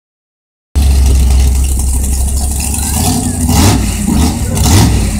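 Pickup truck engine running at the line before a pull, with a steady low rumble and two short revs about three and a half and four and three-quarter seconds in.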